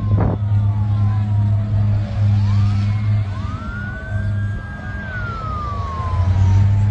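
Emergency vehicle sirens wailing, rising and falling slowly with more than one overlapping, over a steady low hum.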